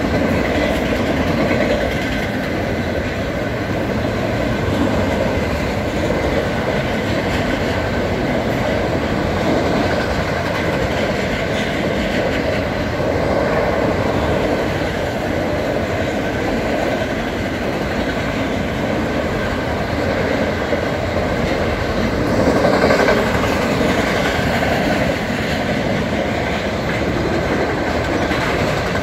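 Long freight train of empty autorack cars rolling past, a steady rumble with the wheels clattering over the rail joints. A faint steady high tone runs over it.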